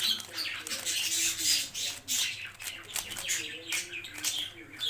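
Rubik's speed cube being turned quickly by hand: a rapid, irregular run of light plastic clicks and rattles as the layers snap round. The cube turns smoothly.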